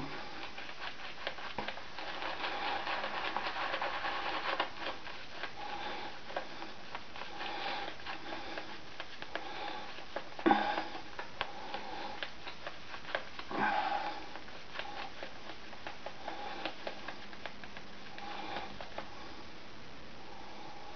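Boar-bristle shaving brush swirling wet soap lather over a stubbled face: a continuous scratchy, squishy rubbing of bristles and foam, with a few louder moments about ten and fourteen seconds in.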